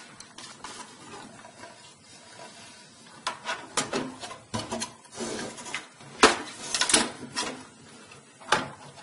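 A motherboard being slid into a desktop computer case and fitted against it: quiet handling at first, then a series of clicks, knocks and a brief scrape from about three seconds in, the loudest knocks a little after the middle.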